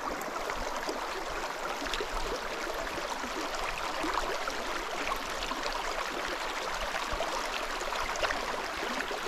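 Small mountain stream flowing steadily, an even rush of water.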